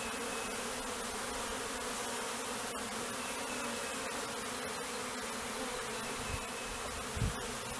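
Steady buzzing of a swarm of honeybees around an opened bait hive, many bees flying at once.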